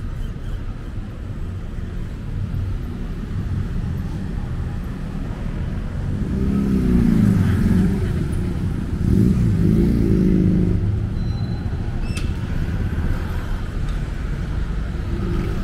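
Street traffic: a steady low rumble of engines, with two vehicles passing louder about six and nine seconds in, their engine pitch rising and falling as they go by.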